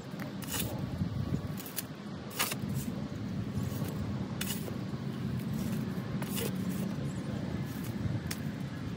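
A metal garden shovel scraping into loose soil and dirt sliding off the blade into a wheelbarrow, about six short scrapes over a steady low rumble.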